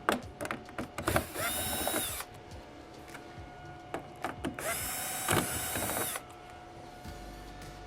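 Cordless power screwdriver backing out a TV's back-cover screws, running twice for about a second each with a motor whine that climbs as it spins up. Light clicks and handling noises fall between the runs.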